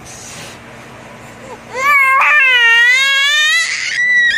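A baby's loud, high-pitched squeal: one long shriek of about two seconds starting about two seconds in, wavering a little in pitch, then a short thin squeak near the end. It is a happy squeal, not crying.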